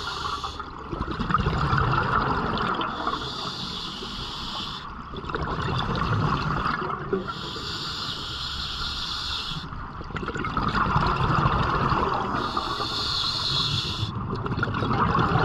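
Scuba diver breathing through an open-circuit regulator underwater: a hiss on each inhale lasting about two seconds, alternating with exhaled bubbles gurgling out. The slow, even cycle repeats about every four to five seconds, three breaths in all.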